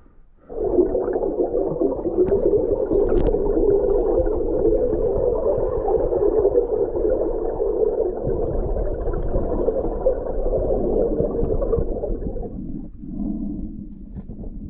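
Muffled underwater water noise picked up by a GoPro in its waterproof housing: a steady rush and gurgle with no high end. It begins suddenly about half a second in and drops to a lower, quieter rumble near the end.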